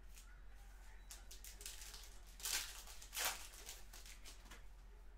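Foil trading-card pack wrappers and cards being handled, crinkling and rustling faintly, with two louder crinkles about two and a half and three and a quarter seconds in.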